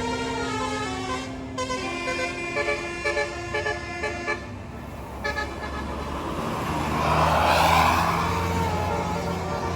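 Bus 'telolet Basuri' musical air horn playing a quick tune of several stepped notes for about five seconds. Then the bus's engine runs with a low drone and a rush of noise that swells and fades as the bus goes by.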